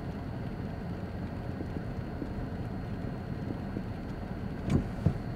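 Truck driving through falling snow, a steady low rumble of engine and road noise heard from inside the cab, with two short knocks near the end.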